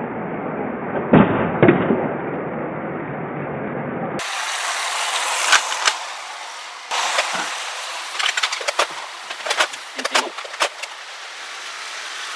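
Lego trains running along the track: a steady rolling noise with scattered clicks and knocks.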